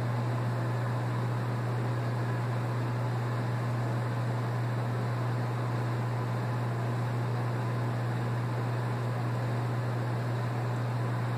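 Steady low hum with an even hiss behind it, unchanging in pitch and level throughout.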